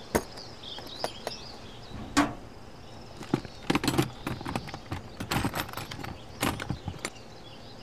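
Scattered clicks and short rustles of objects being handled, coming irregularly a few times a second, over a faint background of high chirping.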